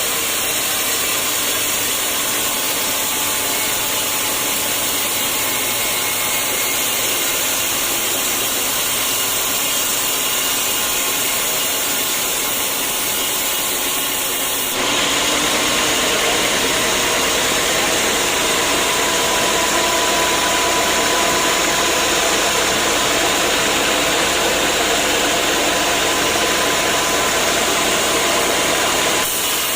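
Sawmill machinery running steadily, a loud, even noise that changes abruptly about halfway through, becoming brighter with faint steady tones.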